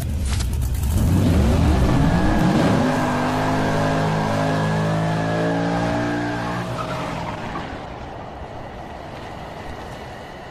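Car engine revving hard, its pitch climbing over the first few seconds and then holding, with tyres squealing through a smoky burnout; it fades out over the last few seconds.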